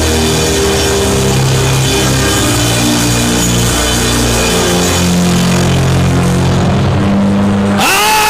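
Live worship band music under prayer: sustained keyboard chords over bass and drums, changing chord every second or so. Near the end, a long pitched note rises and then falls.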